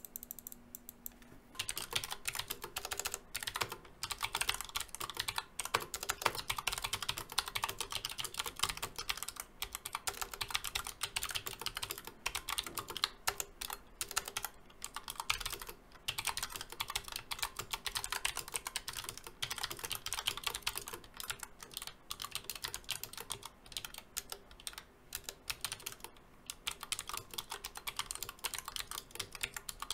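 Typing on a Redragon Shrapnel keyboard with low-profile Outemu Blue clicky switches: rapid, irregular key clicks begin about a second and a half in. In these switches an internal clip catches on the stem, so each key clicks on both press and release.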